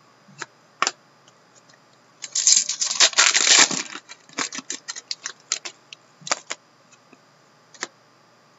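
A trading-card pack's wrapper torn open and crinkled for about a second and a half, starting about two seconds in. Then a run of short clicks and ticks as the cards are handled, thinning out towards the end.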